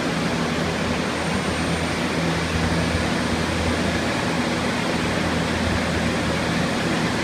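Many restoration air movers, turbo fans and dehumidifiers running together to dry out water-damaged walls: a steady rush of blown air with a low hum underneath.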